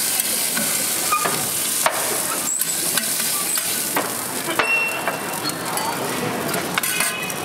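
Food sizzling on a hot flat griddle, with a few sharp metal clicks and scrapes from tongs and a spatula working on it.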